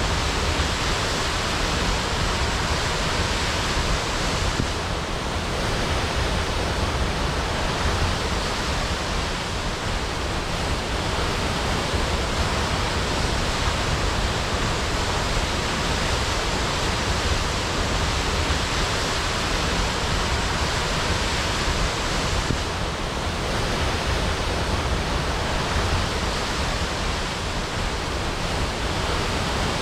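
Waterfall crashing: a loud, steady rush of falling water.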